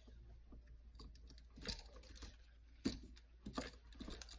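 Vinyl electrical tape being pulled off the roll and wrapped around a GFCI receptacle: faint, irregular crackles and clicks, with a sharper click about three seconds in.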